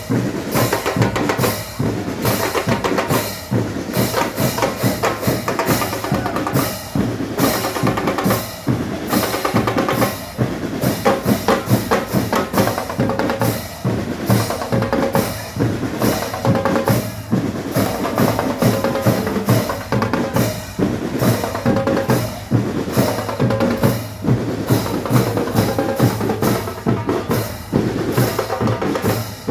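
A band playing music with a steady, driving drum beat of bass drum and snare, over pitched instruments.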